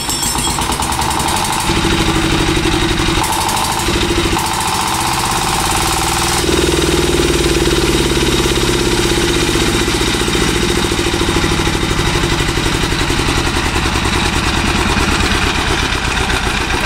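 Chief 25 hp LD-model single-cylinder diesel engine running. Its speed shifts in steps during the first six seconds or so, then it settles into a steady, loud run.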